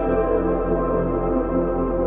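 Background music: slow ambient synthesizer pads with sustained chords.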